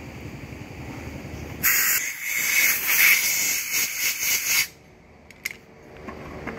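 A loud, even hiss of blowing air lasting about three seconds, starting and stopping abruptly, over a steady low machine hum. A single sharp click follows.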